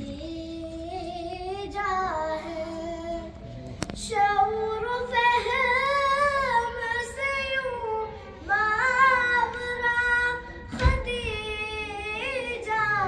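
A boy singing an Urdu devotional kalam solo into a microphone, holding long notes with wavering, ornamented turns and breaking off briefly for breath. A single low thump sounds near the 11-second point.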